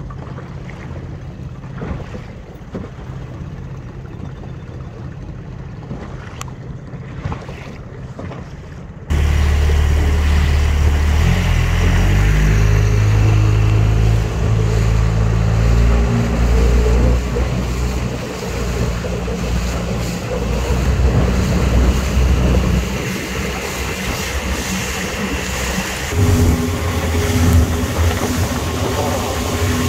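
Outboard motor of a small inflatable boat running under way, with water rushing and splashing along the hull and wind on the microphone. About nine seconds in it becomes suddenly much louder as the boat runs fast through rough water, the engine note stepping up and down a few times.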